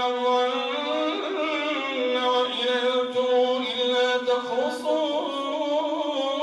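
A male imam recites the Quran aloud in a melodic chant, drawing out long held notes that slowly bend in pitch.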